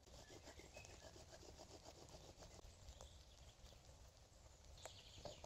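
Faint bow drill for friction fire-lighting: a wooden spindle rubbing in quick, even back-and-forth strokes against a wooden hearth board, to drill up a coal for the tinder bundle.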